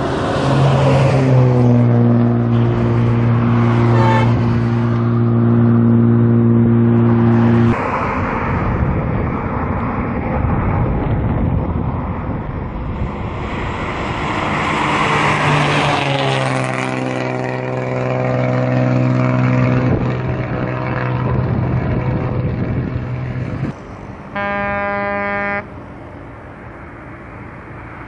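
Hino AK1J passenger buses passing at high speed, engines and tyres loud. Twice a long, held horn blast sounds as a bus goes by, its pitch dropping as the bus passes and then holding steady until it cuts off. A short horn blast comes near the end.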